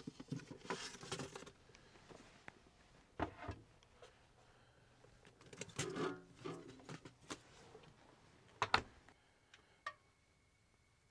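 Light knocks, clicks and rustling of things being handled and set down in a small room, with a sharper knock about nine seconds in. A faint steady high tone starts near the end.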